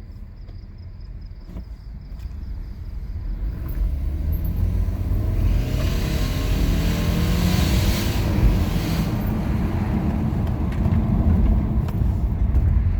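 2018 Subaru Forester 2.0XT's turbocharged flat-four engine running and building revs, growing louder from about four seconds in, with a rushing hiss at its loudest through the middle.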